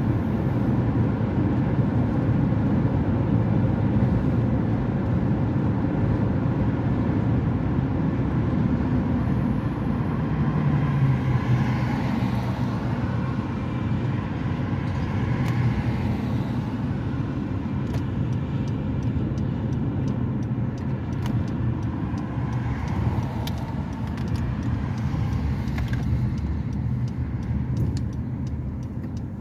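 Car on the road: a steady low rumble of engine and tyre noise, with faint ticks in the second half.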